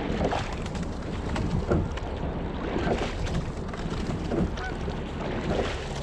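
Single rowing scull under way: water washing along the hull with a recurring splash about every one and a half seconds as the oar blades enter and leave the water, and wind on the microphone.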